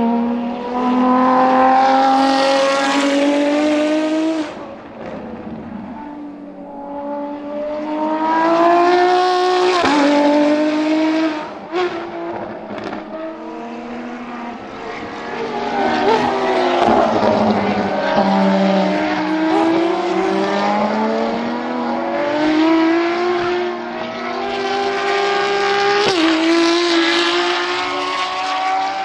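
Ferrari FXX K Evo V12 track cars passing at full throttle, the engine note climbing through the gears with quick upshifts. Several passes go by, and around the middle two cars pass together, their notes crossing.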